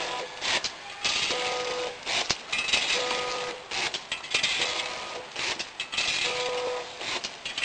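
Vertical form-fill-seal snack packing machine running through its bagging cycles: repeated clattering and clicking bursts as product drops into the bags and the mechanism works, with a brief steady hum now and then.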